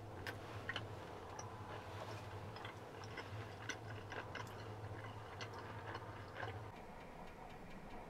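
Fork tapping and scraping on a metal tray while eating, a scatter of faint irregular clicks. Under it runs a steady low hum that stops near the end.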